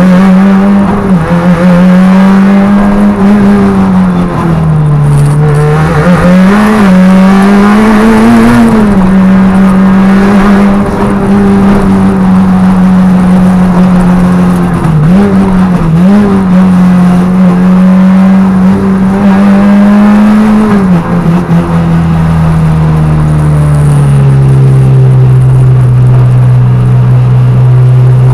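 Peugeot 106 Rallye Group A rally car's engine running hard at high revs, heard from inside the cabin. The pitch dips and climbs back several times as the car is driven through the stage, then settles to a lower, steady note for the last several seconds.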